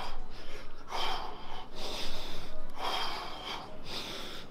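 A man breathing hard during a shadow-boxing workout: hissy breaths, about one a second, several in a row.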